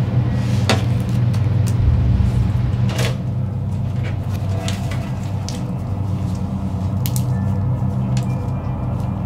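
Low, steady droning score under scattered sharp clicks and knocks, the strongest about three seconds in.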